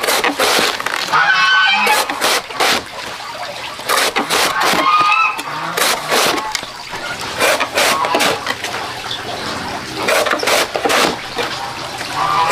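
Large knife slicing through a fresh, raw bamboo shoot on a board, a crisp wet crunch with each cut, a couple of cuts a second.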